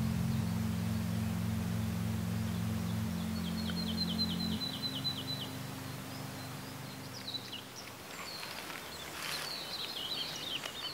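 Low, held background music chords fading out in the first half, while small birds chirp: a rapid trill of about ten notes around the middle, then scattered bird calls in the second half.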